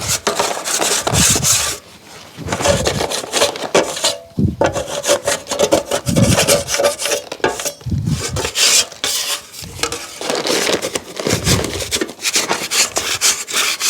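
Repeated scraping and rubbing strokes, about one a second, as a drywall knife is cleaned of hot mud.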